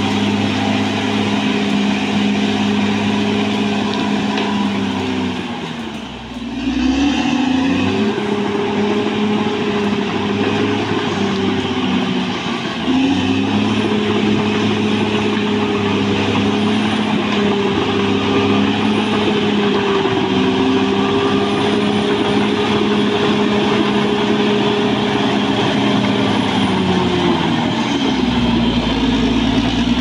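Caterpillar D6R XL bulldozer's diesel engine running as the dozer works, a steady deep drone whose pitch sags and recovers about six seconds in and drops again near the end.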